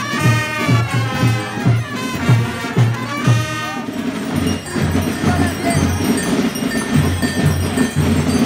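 Carnival brass band music with a steady drum beat, together with the jangle of the Gilles' bells.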